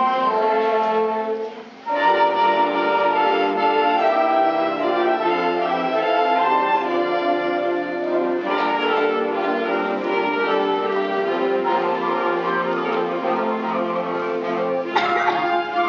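High school concert band playing, with clarinets playing among the woodwinds; the sound dips briefly about two seconds in, then the full band comes back in, with a loud accent near the end.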